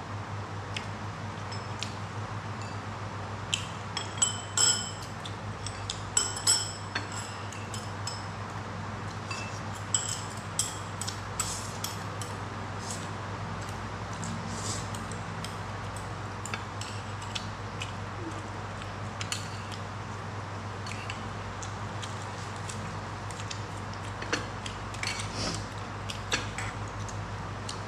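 Chopsticks clinking and tapping against a ceramic bowl and plate during a meal, in scattered light clicks. The loudest are a few ringing clinks about four and six seconds in. A steady low hum runs underneath.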